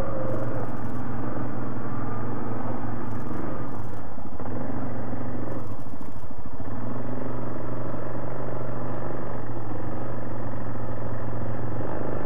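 ATV engine running under load while climbing a rutty, leaning side hill. The throttle eases briefly about four seconds in, then picks up again.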